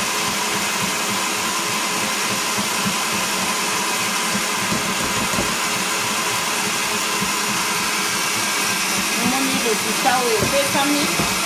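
A small electric motor running with a steady whir and hiss that holds an even level throughout.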